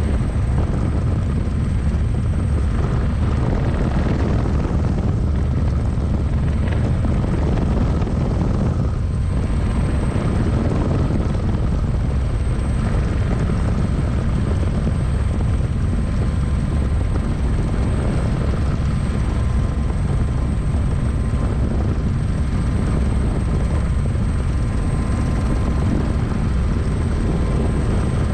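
Turbine-powered single-seat experimental helicopter in steady forward flight, heard from inside the cockpit: a loud, even rotor-and-engine din that is heaviest in the low range, with a few thin steady tones above it.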